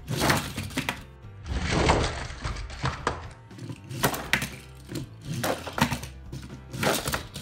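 Background music, with a few sharp plastic knocks and clatters of toy monster trucks hitting the cardboard ramps and tabletop.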